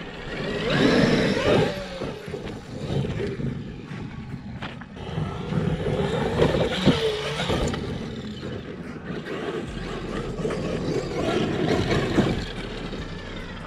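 Electric motors of large Traxxas X-Maxx RC monster trucks whining as they throttle up and back off in bursts, loudest about a second in, around the middle and near the end, with tyres scrabbling on loose dirt.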